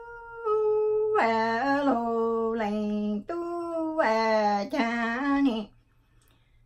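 A woman singing Hmong lug txaj (sung poetry) unaccompanied. A long held note trails off, then several drawn-out phrases step up and down in pitch, breaking off about six seconds in.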